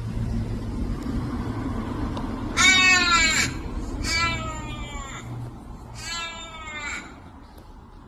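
A bird giving three drawn-out wailing calls, about a second apart and each about a second long, that sound like a baby crying.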